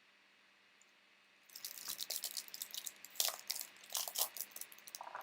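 Foil trading-card pack wrapper crinkling and crackling as it is handled and torn open, starting about a second and a half in.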